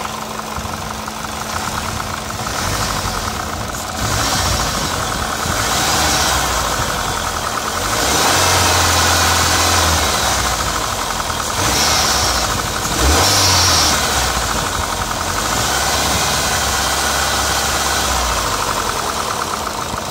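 Chrysler PT Cruiser GT's 2.4-litre 16-valve four-cylinder running with a loud diesel-like clatter, its revs rising a few times. The clatter is the sign of an internal engine fault that the owner first took for lifter tick rather than rod knock.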